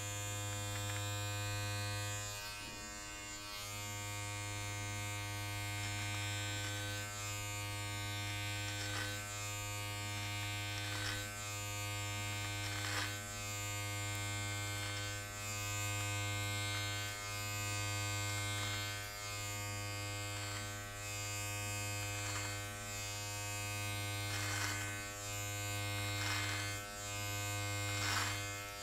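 Small electric body-hair trimmer with a number two guard buzzing steadily as it cuts beard hair. Its tone changes briefly with each pass, about every two seconds.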